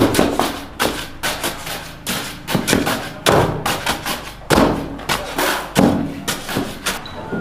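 Repeated heavy thuds and knocks, irregular, roughly two a second.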